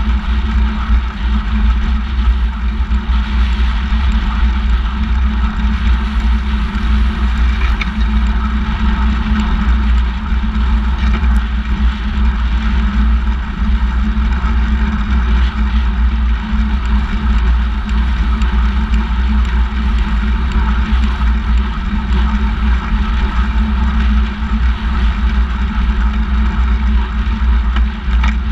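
Steady wind buffeting on the camera's microphone and the rumble of a handbike's tyres rolling on asphalt while riding along a road at speed.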